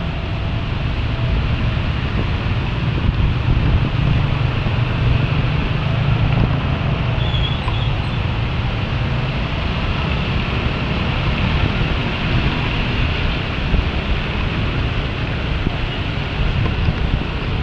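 Steady wind noise on an action camera's microphone while riding through heavy rain in traffic, with a strong low rumble under an even rush of rain and road noise.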